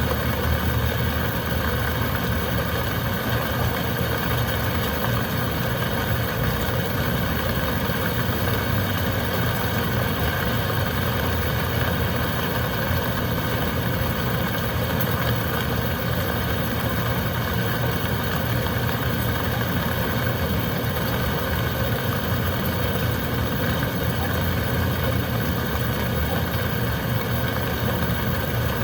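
Heavy rain and wind: a steady, unbroken rush of noise with a deep rumble underneath.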